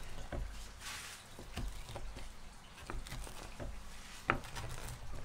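Large straight-bladed knife cutting through a crisp-based cheesy garlic pizza and knocking on the wooden board beneath: a scattered series of short crunches and knocks, the loudest a little after four seconds as the raised blade comes down again.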